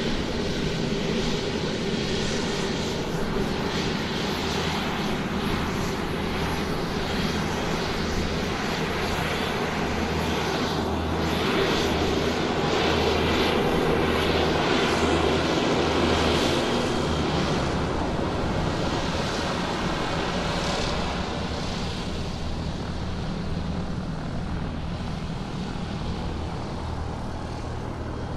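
Airplane engine running while the aircraft taxis on the ground: a steady drone that grows a little louder about halfway through, then eases off toward the end.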